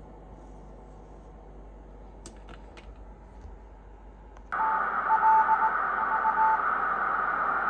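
Super RockMite QRP transceiver's headphone audio: a loud hiss through the receiver's narrow filter starts abruptly about halfway through, with a steady Morse code tone keyed on and off in dots and dashes over it. The first half is quiet apart from a few faint clicks.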